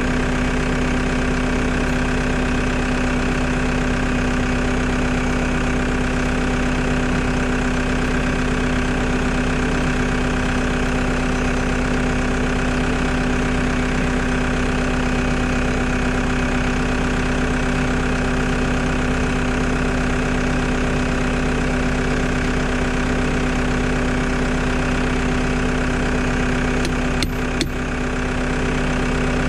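Skid loader engine idling steadily. Near the end, a few sharp hammer strikes on a steel pin being pounded into the over-the-tire track joint.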